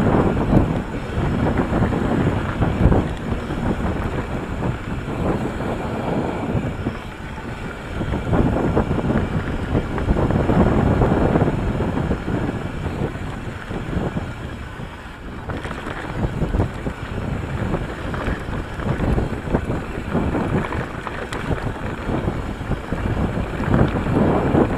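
Wind rushing over the microphone of a bike-mounted action camera while an Ibis Mojo HD3 mountain bike rolls along a dirt singletrack. The tyres rumble on the dirt, with scattered knocks and rattles from the bike over bumps, swelling and easing with speed.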